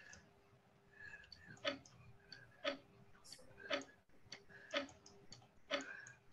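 Online drawing game's countdown timer ticking about once a second, five sharp ticks, the warning that the drawing turn is about to run out.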